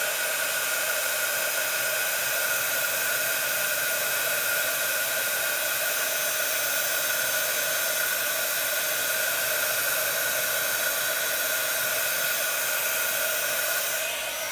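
Handheld craft heat gun running steadily: a loud fan hiss with a steady whine, blowing hot air to melt embossing powder for heat embossing.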